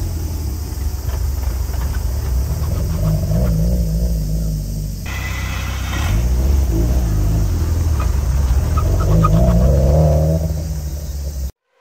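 Subaru WRX STI's EJ20 turbo flat-four running at low revs as the car drives slowly past and turns away. The sound jumps at an edit about five seconds in and cuts off abruptly just before the end.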